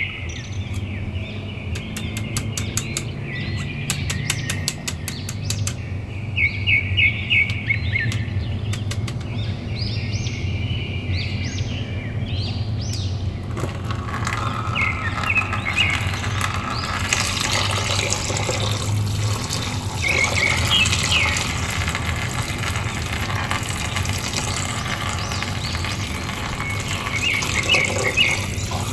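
A thin stream of water squirts from a pierced plastic bag and splashes into a basin of water, starting about halfway through and running on. Birds chirp in the background throughout. In the first half there is a run of sharp clicks.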